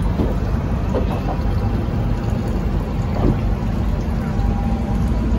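Motorboat's engine idling with a steady low hum.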